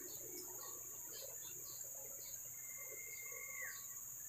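Steady high-pitched chirring of insects, with scattered short chirps. About two and a half seconds in, a single held whistle sounds for about a second and bends down as it ends.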